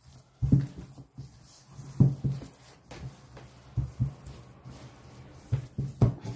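Hands working a wet, sticky picarones dough of flour, mashed sweet potato and squash in a bowl, with irregular soft slaps, some louder than others.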